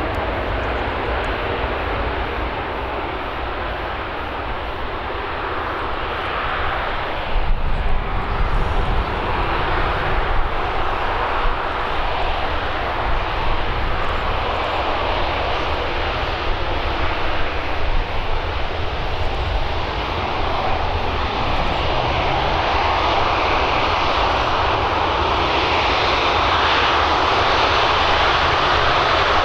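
Airbus A380-800's four jet engines running steadily as the airliner moves on the runway, growing louder over the last several seconds, with a deep rumble underneath.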